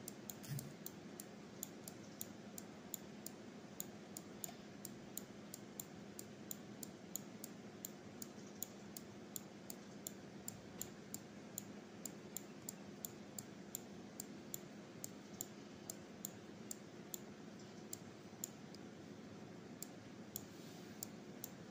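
Computer mouse clicking rapidly and irregularly, about three clicks a second, as icons are picked up and dropped, over a faint steady hum.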